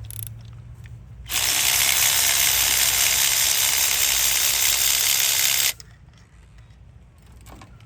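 Cordless electric ratchet running for about four seconds as it spins out a spark plug that has already been broken loose. The buzz starts about a second in and cuts off suddenly.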